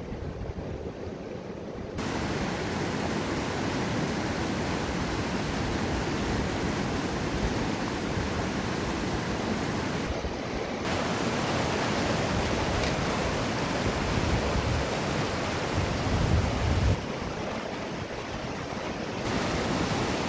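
Fast mountain river rushing over boulders in small rapids, a steady noise of water, with wind gusting on the microphone as a low rumble.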